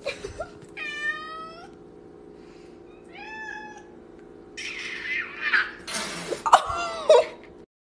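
Cats meowing: one long meow about a second in and a shorter one about three seconds in. Then comes a louder, harsher spell of cat cries with spitting noise while two cats swat at each other. It cuts off suddenly near the end.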